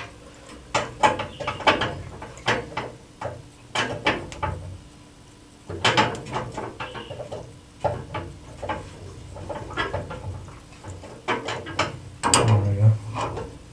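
Crescent wrench working on the packing nut of an old plumbing shut-off valve: irregular metallic clicks and knocks as the tool grips and turns. The packing is very tight.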